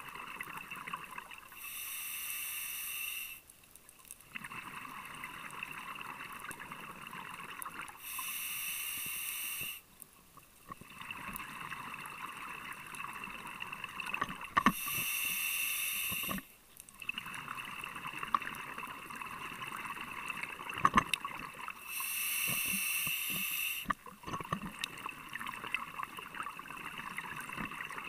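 Scuba diver breathing through a regulator underwater: a hiss on each inhale, then a longer stretch of bubbling on the exhale, repeating about every six to seven seconds, four breaths in all.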